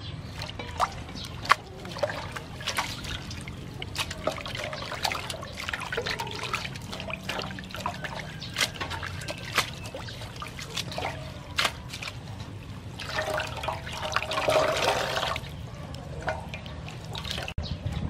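Water sloshing and splashing in a metal basin as hands swish and squeeze wakame seaweed to rinse it, with many short splashes and drips. A denser, louder run of splashing comes about three quarters of the way through.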